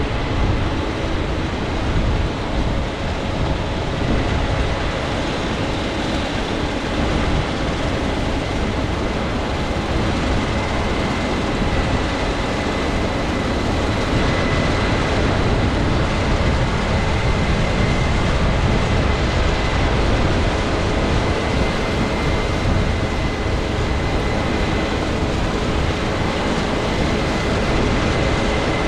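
Case IH 7230 Axial-Flow combine harvesting soybeans at close range: engine, threshing rotor and MacDon FD75 draper header running steadily, with a thin steady whine above the dense mechanical noise.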